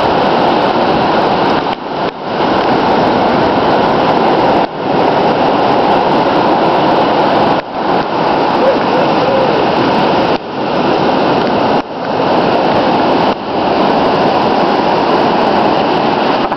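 Heavy surf breaking on the shore: a loud, steady rushing noise that drops out briefly half a dozen times.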